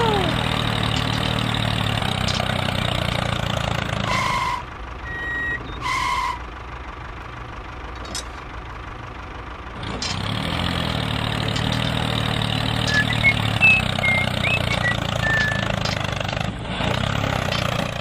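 Tractor engine running steadily, then dropping away from about four seconds in to about ten seconds in, when it comes back. Two short beeps sound during the lull.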